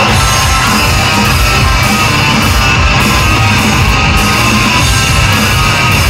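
Loud rock music with electric guitars and a driving beat: the instrumental part of a baseball cheer song, playing just before the singing comes in.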